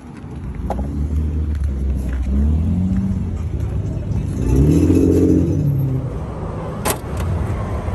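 A car engine running, its pitch rising and falling twice, the second time louder. A sharp knock sounds about a second before the end.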